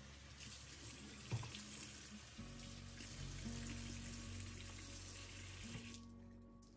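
Water running from a kitchen faucet's sprayer into a sink as a cloth is rinsed under it, with an even hiss that cuts off about six seconds in. Soft guitar music plays underneath.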